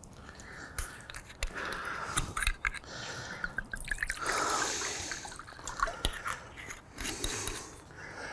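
Red wine poured from a bottle into a glass mixing bowl, splashing and trickling, with small clicks and knocks of bottles being handled around it.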